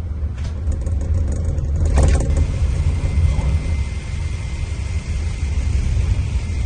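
Scania diesel engine of a Marcopolo Paradiso double-decker coach running with a steady low rumble. A short hiss comes about two seconds in, and a faint steady high whine follows it.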